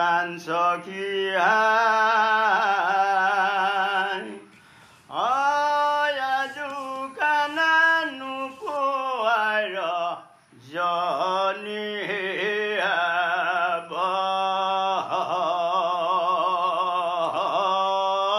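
A traditional Assamese song sung slowly by a solo voice with no instruments: long held notes with a wide, wavering vibrato and ornamented turns over a steady low drone. The voice breaks off briefly for breath about four and a half and ten and a half seconds in.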